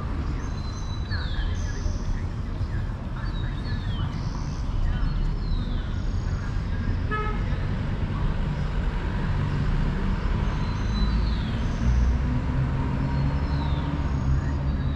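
Street traffic: vehicle engines running, with a short car horn toot about halfway through and a heavier engine's low rumble growing stronger in the second half.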